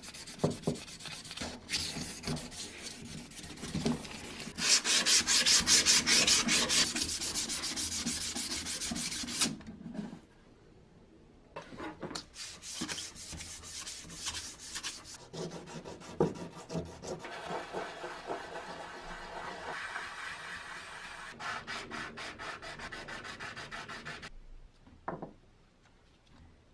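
Fine wet sandpaper rubbed by hand over copper sprayer parts in quick back-and-forth strokes, first inside the tank end and then along a thin copper tube. The strokes pause once for about a second, then go on and stop near the end with a single click.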